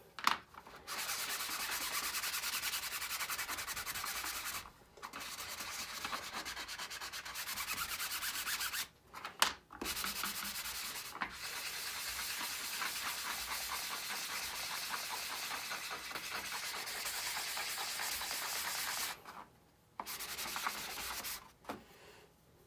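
Sanding sponge rubbed in quick back-and-forth strokes along a 3D-printed plastic stalk, a dry scratchy rasp. It comes in long runs broken by three short pauses and stops shortly before the end.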